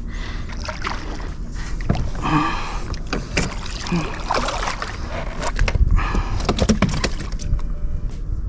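Water sloshing and splashing against a fishing boat, with scattered knocks and clicks of handling on board that come thickest a little past the middle, over a steady low wind rumble on the microphone.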